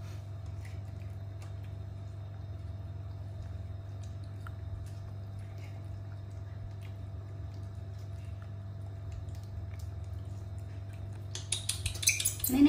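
Faint wet clicks and smacks of young macaques eating juicy dragon fruit, over a steady low room hum. Near the end a louder rustling comes in as a hand handles the fruit on a plate.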